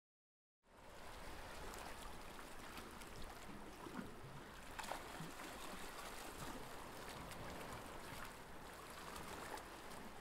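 Faint water lapping and trickling around a kayak, a steady gentle wash with scattered small splashes and drips, starting about half a second in.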